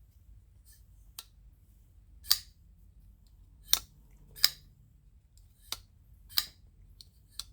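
Petrified Fish PF959 folding knife being worked open and shut, its blade snapping into place with about seven sharp, irregular clicks.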